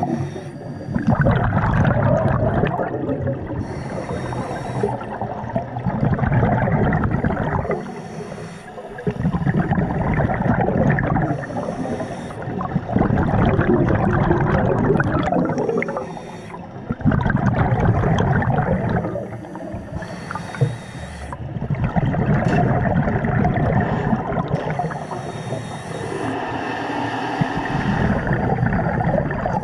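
A scuba diver breathing through a regulator underwater. Long bursts of exhaled bubbles gurgle, alternating with shorter, quieter hissing inhalations, about one breath every four seconds.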